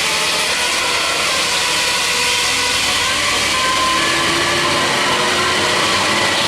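A bus engine running with a steady rushing noise, some faint tones coming and going over it.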